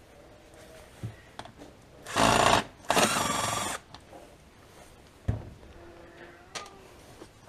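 Cordless impact driver run in two short bursts about two seconds in, backing out a screw from a generator's plastic side case, followed by a few light knocks of the case and tool being handled.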